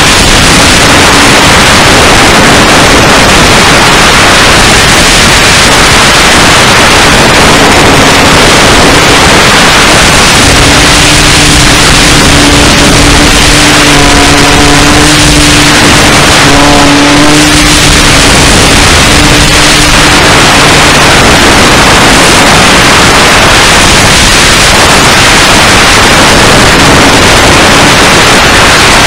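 Control-line model airplane in flight, heard from a camera on its fuselage: a loud, distorted rush of wind over the microphone with the plane's motor running steadily underneath, its tone coming through more clearly around the middle.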